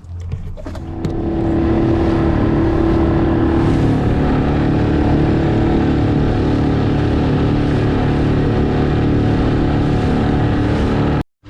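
Boat's outboard motor running under way, rising in level over the first second as it is opened up, then holding steady; it cuts off suddenly near the end.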